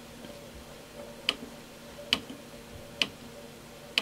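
Front-panel push buttons of an Advantest R6581T digital multimeter clicking as they are pressed, four sharp clicks about a second apart, over a faint steady hum.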